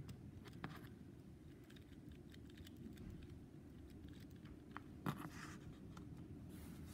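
Faint light clicks and scratches from handling a plastic Kenner Super Powers Aquaman action figure as its arms are squeezed to work its kicking legs, over a low steady room hum.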